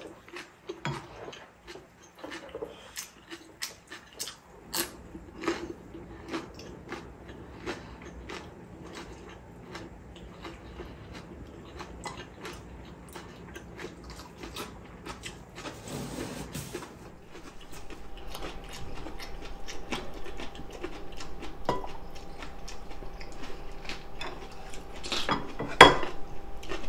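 Chopsticks and a spoon clicking and scraping against ceramic plates and an earthenware pot, with chewing of cabbage-leaf wraps. Scattered light clicks throughout, the loudest a few clicks near the end.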